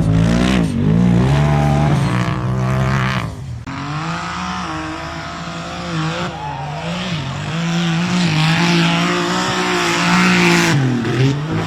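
Off-road 4x4's engine revving hard, its pitch rising and falling again and again with a short drop about three and a half seconds in. A rushing noise builds through the second half alongside it.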